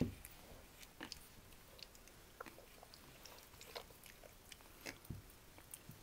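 Pug puppies play-fighting, mouthing and scuffling against each other: irregular small clicks and rustles, with a sharp knock right at the start.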